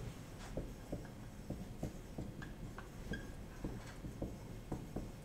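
Marker writing on a whiteboard: faint, irregular taps and strokes, about two or three a second, with a brief squeak about three seconds in.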